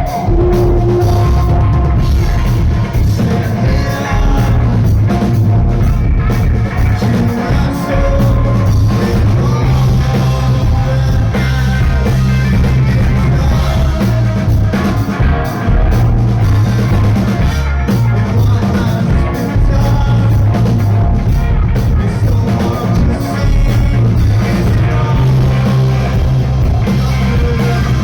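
Rock band playing loud live, a drum kit driving the beat under the band, with singing.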